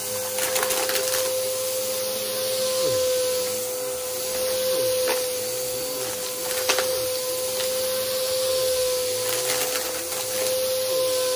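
Aeroswift vacuum cleaner running with a steady motor whine, with scattered sharp crunches and crackles as it sucks up dry debris.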